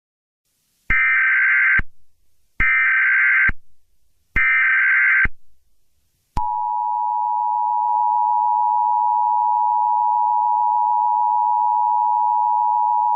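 Emergency Alert System broadcast tones. First come three short, harsh data bursts of the SAME header, evenly spaced. About a second later the steady two-tone EAS attention signal starts and holds.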